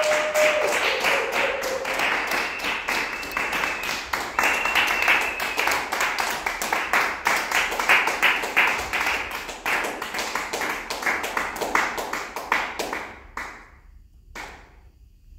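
Hands clapping in applause, dense and irregular, with a couple of held whistles in the first five seconds. The applause dies away about thirteen seconds in, and one last clap follows about a second later.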